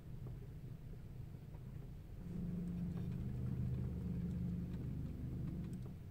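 Low hum inside a Tesla Model S cabin as the car creeps into a parking space under Autopark; the hum grows louder, with steady low tones, for about three and a half seconds from two seconds in.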